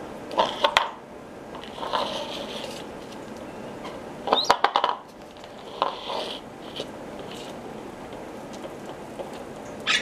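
A yellow plastic bowl knocked about on a tiled floor by an African red-bellied parrot: short bursts of clattering clicks and knocks, four or five times, with a brief scraping stretch about two seconds in.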